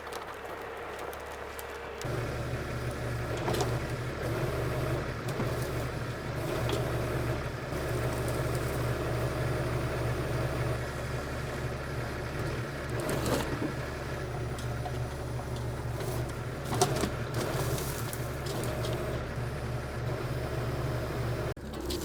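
Tractor engine running steadily, coming in suddenly about two seconds in, with a few sharp knocks or clanks over it.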